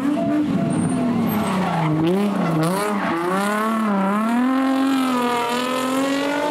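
A rally car's engine revving hard, its pitch dipping and rising several times as the throttle is worked, then climbing steadily near the end, with the tyres skidding as the car slides.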